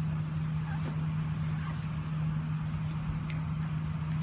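Steady low machine hum, most likely the blower that keeps the air-supported dome inflated, running constantly. A faint click about three seconds in.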